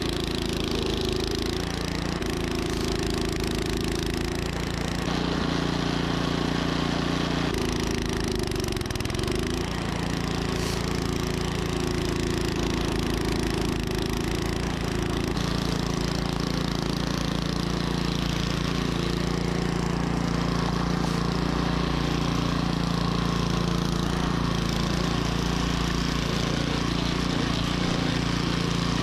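Troy-Bilt snowblower engine running steadily, its pitch dipping briefly about a third of the way through.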